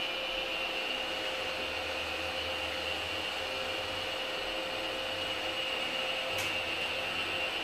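A steady mechanical whirring hum with a high-pitched whine, heard inside an elevator car standing at a floor. There is one faint click about six seconds in.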